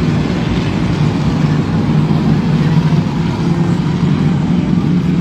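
A pack of short-track race cars running steadily at low speed, their engines blending into one constant low drone as the field circulates before a restart.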